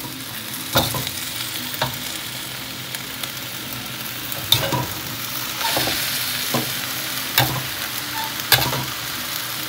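Pork belly, green beans, cabbage and wood ear mushrooms sizzling as they are stir-fried in a wok, with a metal ladle scraping through them and knocking sharply against the wok about six times at uneven intervals.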